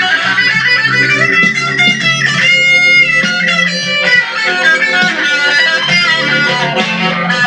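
Guitar-led background music, with plucked electric guitar over a steady bass line.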